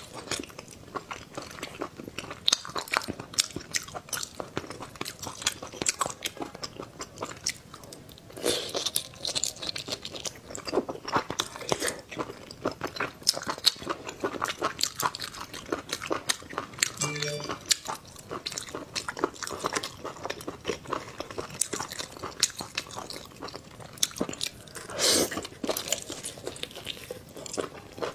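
Close-miked eating of mala spicy braised octopus: chewing and biting, with many short, sharp wet mouth clicks throughout.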